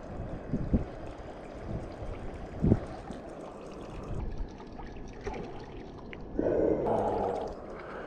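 Crawler-type topwater lure gurgling and splashing across the water surface as it is retrieved. Near the end comes a louder splash lasting about a second and a half, as a fish strikes at the lure and misses it.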